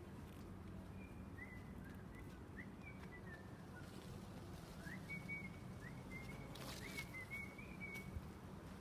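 Whistling: a run of short, high whistled notes, many opening with a quick upward slide, with a short break partway through, over a faint steady hum.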